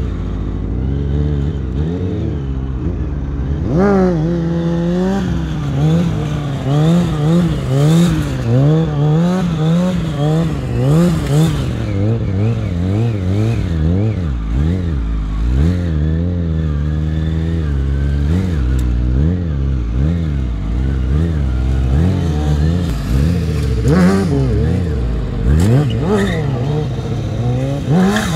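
Sport bike engines revving up and down over and over as stunt riders hold wheelies, the throttle constantly blipped and rolled off, with a hard climb in revs at the very end.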